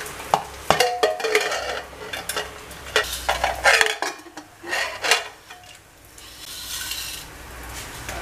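Aluminium pressure cooker being opened by hand: a run of metal clicks, knocks and scrapes, some ringing briefly, as the lid is twisted by its handle and lifted off.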